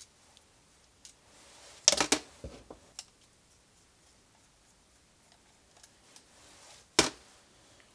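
Small metallic clicks and clinks from a screwdriver and screws while the dashpot screws of an SU carburettor are taken out: a quick cluster of clinks about two seconds in, a few lighter ticks after it, and one sharp click near the end.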